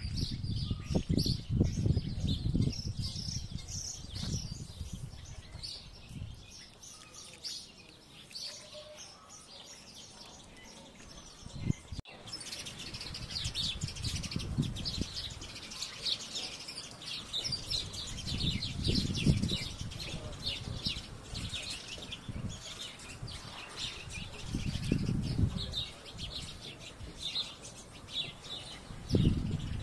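Many small birds chirping busily in a dense, overlapping chorus. Several loud bursts of low rumble come and go, at the start, in the middle of the second half and near the end.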